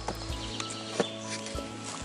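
Background music with steady held notes, with a few sharp clicks and one louder knock about a second in.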